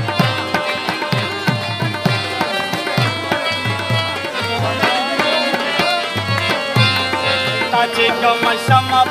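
Live Pashto folk music: a tabla beats a steady, quick rhythm over a sustained harmonium and a plucked rabab.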